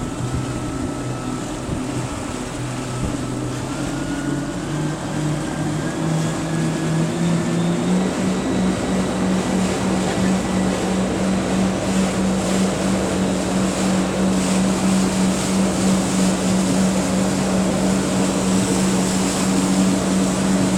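Jet ski engine running under way, its pitch climbing in steps over the first eight seconds or so as it speeds up, then holding steady at speed over a constant rush of noise.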